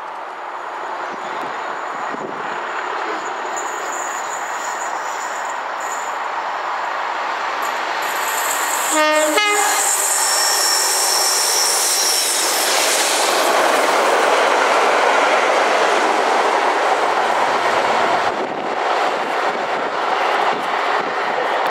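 A train approaches and passes at speed. It gives a short horn blast about nine seconds in, then the rush of the passing train grows loudest, and near the end come rhythmic wheel clicks over the rail joints as it draws away.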